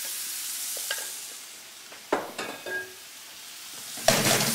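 Pork strips sizzling as they are stir-fried in a wok, with a few scrapes and clinks of the utensil against the pan. About four seconds in there is a sudden loud burst of sizzling as the meat is tossed.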